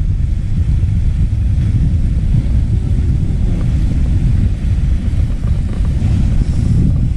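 Steady low rumble of sea wind buffeting the microphone, with surf washing on the rocks.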